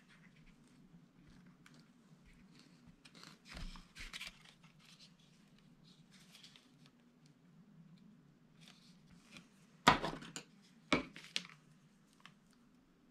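Faint handling noises as a mounted bass skin is pressed and turned on a newspaper-covered table: soft rustles and small clicks, a louder patch of clicks a few seconds in, and two sharp knocks about a second apart near the end. A low steady hum runs underneath.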